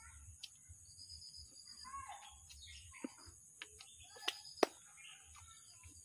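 Birds chirping and calling, over a steady high insect buzz. A few sharp clicks cut through, the loudest two close together about four and a half seconds in.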